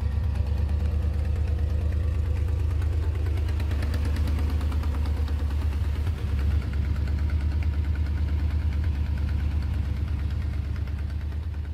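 Swapped 5.3-litre LS V8 in a 1939 Chevy rat rod idling steadily, with a fast, even pulsing exhaust beat; the sound fades out near the end.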